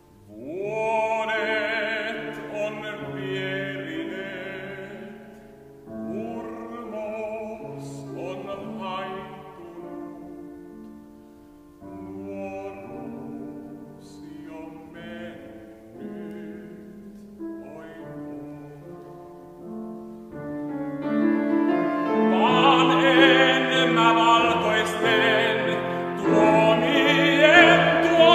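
A baritone singing in classical operatic style with vibrato, accompanied by a grand piano. The voice comes in about half a second in and sings in phrases. The piano carries on more quietly through the middle, and the singing grows loudest over the last several seconds.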